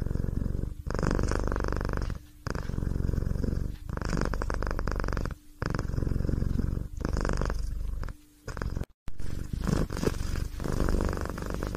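Domestic cat purring close to the microphone, in repeated stretches of about a second and a half with short breaks between them as the cat breathes in and out.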